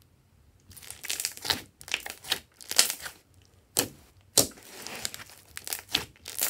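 Hands squeezing and pressing a large mass of clear slime, making a string of sharp, crackling pops that start after a quiet first second.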